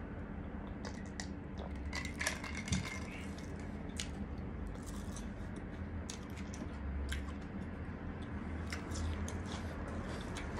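Crisp breadcrumb-fried chicken coating crackling as it is broken apart by hand, in scattered small clicks, with a sharper knock about three seconds in, over a steady low hum.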